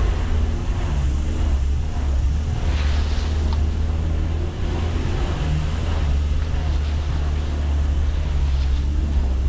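Mitsubishi L300 Delica 4WD van driving along a rough dirt track, its engine running steadily under a deep rumble of wind buffeting the microphone.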